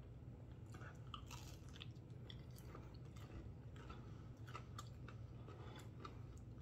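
Faint chewing of a mouthful of chicken sandwich: soft, irregular mouth clicks over a low steady hum.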